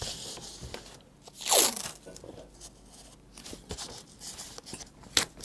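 Masking tape being ripped and pressed down onto a cardboard frame: one short, loud rip falling in pitch about a second and a half in, quieter rubbing and rustling of paper tape on card, and a sharp click near the end.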